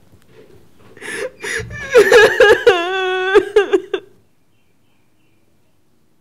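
A woman's high wordless vocal outburst in quick, breaking bursts, with a wavering held note near the end. It cuts off suddenly about four seconds in.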